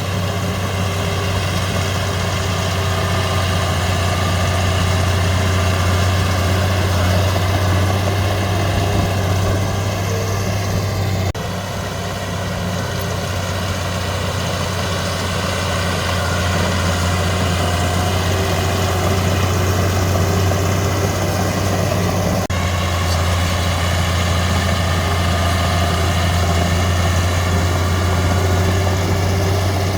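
Komatsu D31P bulldozer's diesel engine running steadily with a deep, even drone.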